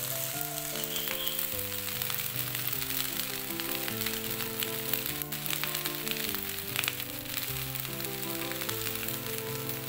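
Egg fried rice sizzling in a frying pan as it is stirred with a wooden spatula, with a few sharp scrapes of the spatula. Background music of slow held notes plays over it.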